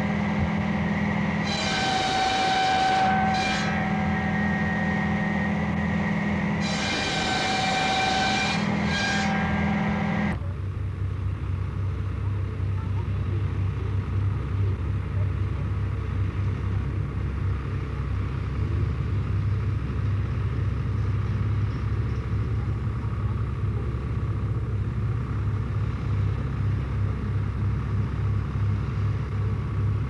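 For about the first ten seconds, a tractor-driven log-cutting machine runs with a loud whine that comes in several long bouts as logs are fed through. It cuts off suddenly to a tractor's diesel engine throbbing steadily as it pulls a plough.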